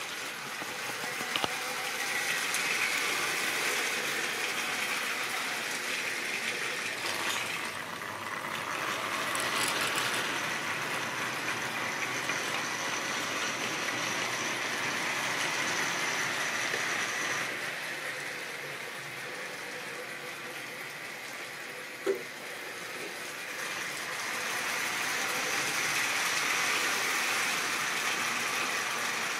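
Model railway locomotives and wagons running on the track, a steady mechanical running and rattling that swells and fades as the trains pass close by. There is one sharp click a little over twenty seconds in.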